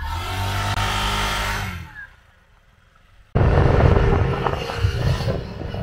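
Motor scooter engine running for about two seconds, its pitch dropping as it eases off, then a short lull. About three seconds in, loud wind buffeting the microphone with the scooter's engine humming underneath as it rides along the road.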